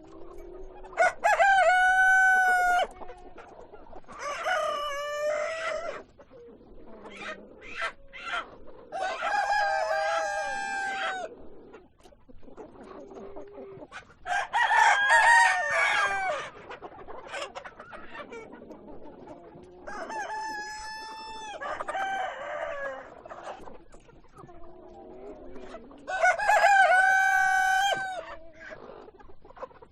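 Rooster crowing again and again, about seven long crows a few seconds apart, with hens clucking more quietly in between.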